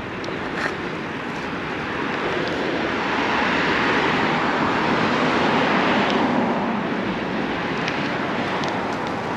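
Rushing road noise that swells over a few seconds to a peak near the middle and then eases off, as of a car passing close by a moving bicycle, with wind on the microphone.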